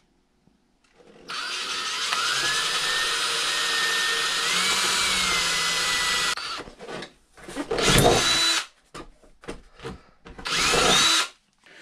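Cordless drill with a small twist bit boring a hole through an RC boat's transom for a cooling-line fitting: a steady whine about five seconds long that steps up in pitch twice, then cuts off. Two short bursts of the drill follow, one about eight seconds in and one near the end.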